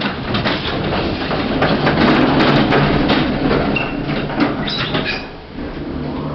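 Irregular mechanical clattering and knocking from a 1960s Jensen lift in operation, with a brief high tone about four seconds in.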